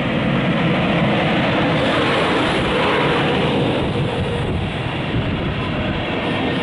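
Passenger train of a DB class 111 electric locomotive and n-Wagen coaches passing close at speed: a loud, steady rolling noise of wheels on rail as the coaches stream by.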